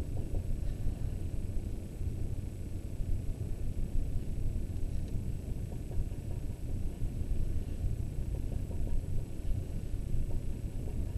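A low, steady rumble with no distinct events standing out.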